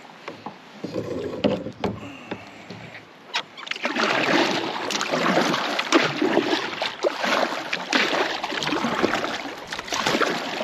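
Double-bladed kayak paddle dipping and splashing through lake water in a quick series of strokes, starting about three and a half seconds in, after a few knocks from gear being handled. Rain patters on the water throughout.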